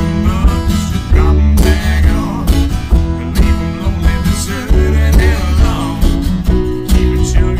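Acoustic guitar playing a country-blues tune.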